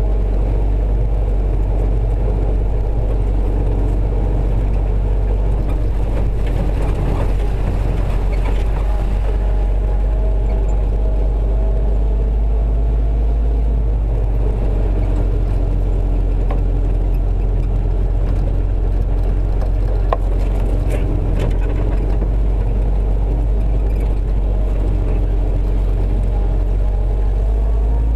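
Willys CJ-3B Jeep driving on a rough dirt trail: its four-cylinder engine running steadily under a heavy low rumble, with a few rattles and a sharp knock about twenty seconds in.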